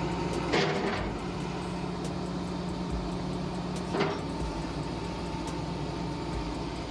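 Excavator's diesel engine running steadily with a constant hum, and two short knocks, one about half a second in and one about four seconds in.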